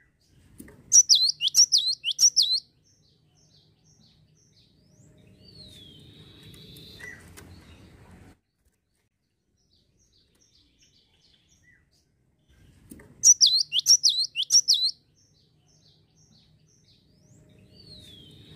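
Cinereous tit (gelatik batu) singing two loud phrases of about six quick, downward-sweeping whistled notes, one about a second in and another about thirteen seconds in. Between them are faint, quick, evenly spaced ticking calls and a single gliding note, over a faint low background rumble that stops suddenly.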